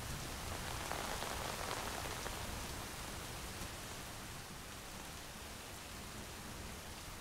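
Steady rain falling, a little heavier about a second in and then easing slightly.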